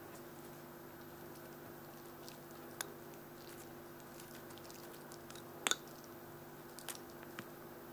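A cat biting and chewing a dry silver vine (matatabi) stick: a few scattered sharp crunches and clicks, the loudest a quick double crunch a little past two-thirds of the way, over a steady low hum.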